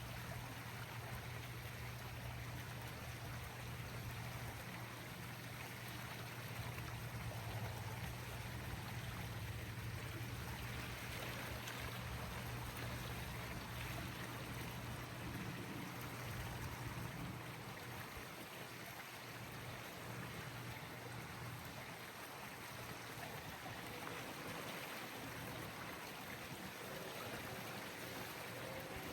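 Steady rushing of running water, with a low hum underneath that fades out a little past halfway.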